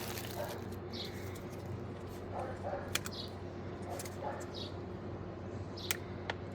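Sparrows chirping, short single high chirps repeating about once a second, with a few sharp clicks in between.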